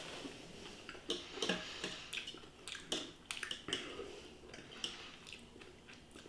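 Knife and fork clicking and scraping faintly against the metal tin of a Fray Bentos pie as the pie is cut and forked, in a dozen or so irregular taps.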